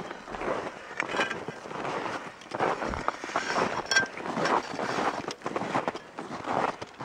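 Footsteps crunching in snow, coming irregularly about every half second to a second, with a short metallic clink about four seconds in.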